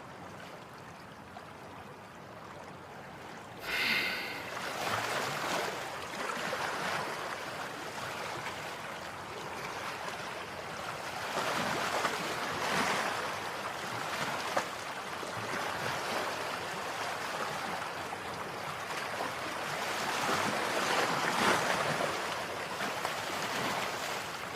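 Ocean surf, waves washing in and out in slow swells, starting suddenly after a few seconds of faint hiss. A short high-pitched call sounds just as the surf comes in.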